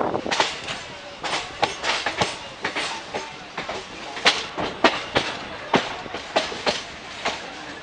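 Indian passenger train coach wheels clattering over rail joints and points: an irregular run of sharp metallic clacks, a few a second, over the steady rumble of the moving train, heard from the open coach door.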